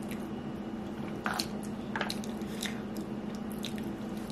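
A person chewing a mouthful of strawberry biscuit: a few soft, wet mouth clicks over a steady low hum.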